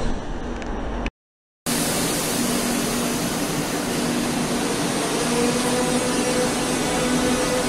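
Madrid Metro Serie 5000 train in an underground station: a steady rushing noise with a steady hum sounding over it from about two seconds in. About a second in, the noise of a passing metro train cuts off abruptly for half a second.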